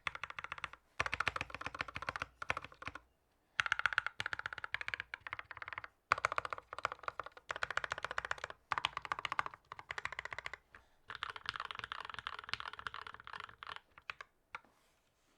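Fast typing on a custom mechanical keyboard with lubed and filmed Gateron Yellow linear switches, a carbon fiber plate, a wooden case and PBT keycaps. Rapid runs of key presses in bursts of a second or two with short pauses, trailing off near the end.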